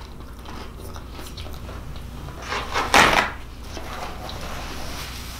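Soft chewing, then about three seconds in a loud, brief rustling rip as a sheet of paper towel is pulled off and handled.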